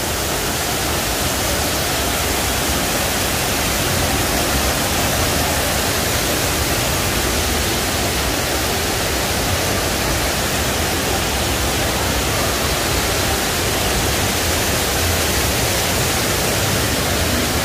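Steady, even rushing of falling water from an indoor artificial rock waterfall, unchanging in level with no distinct events.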